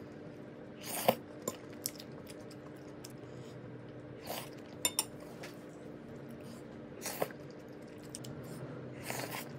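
Metal fork clinking and scraping against a ceramic plate of saucy tteokbokki, a few sharp clinks spread through, the loudest about a second in, with softer scraping and scooping between, over a faint steady hum.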